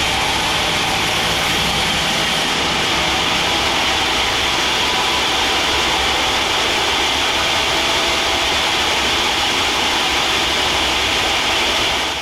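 Sawmill machinery running steadily as teak is sawn into boards: a loud, even mechanical noise with a strong high hiss over a low rumble.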